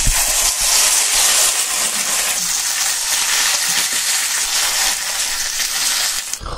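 Thick Hanwoo beef sirloin steak sizzling in its fat and juices on a hot flat griddle, a steady loud hiss that cuts off near the end.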